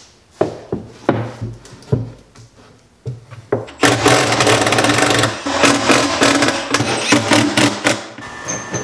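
Milwaukee cordless driver running screws into a plywood cabinet in a sustained run from about four seconds in, fastening the drawer slides. Before that, scattered knocks from the plywood cabinet being handled and set down on the bench.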